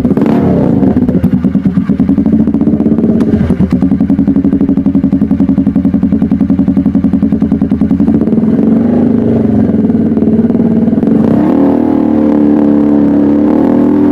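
Motorcycle engine idling through an aftermarket exhaust, the individual exhaust pulses clearly audible at first, then settling into a smoother, slightly higher idle in the second half.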